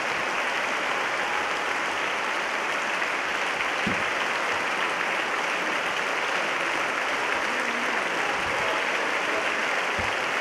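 A large assembly of parliamentarians giving a standing ovation: many people clapping in a dense, continuous, steady applause.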